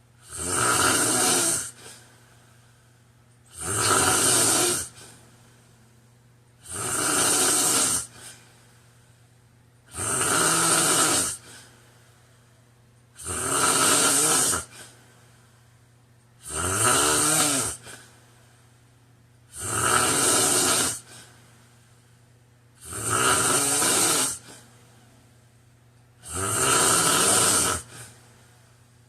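A man snoring in a slow, even rhythm: nine snores, each about a second and a half long, one roughly every three seconds, with quiet breathing gaps between.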